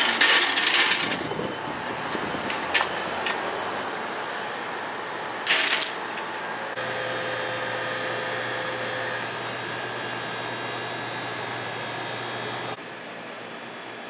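Metal shopping cart rattling and clinking as it is handled and pushed, loudest in the first second, with a few sharper clicks and a short clatter a few seconds later. After that, a steady supermarket background hum.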